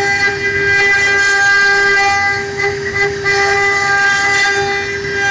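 A 2.2 kW water-cooled spindle on a CNC wood router routes a groove in a wooden board. It makes a steady, constant-pitch whine, with the rasp of the bit cutting wood underneath.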